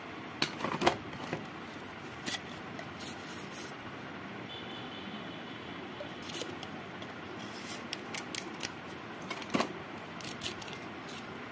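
Drill bits and chisels being pulled from and pushed into snug yellow plastic sleeves and handled over a plastic tool case, giving scattered light clicks, taps and scrapes. Sharper knocks come about a second in and again near the end.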